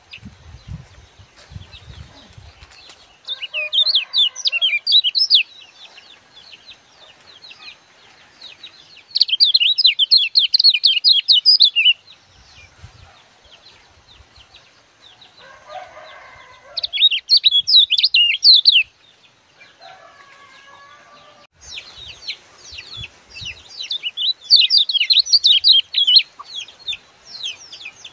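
Caged white-eye (kecial kuning) singing in bursts of fast, high-pitched chattering notes, each note dropping quickly in pitch. It sings four phrases of two to six seconds with pauses between, the last and longest starting about three-quarters of the way in.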